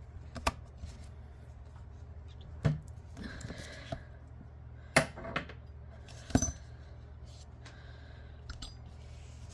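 Sharp metallic clicks and clinks as a small metal fidget spinner is handled against a hard surface: about four louder knocks a second or two apart, with fainter ticks between.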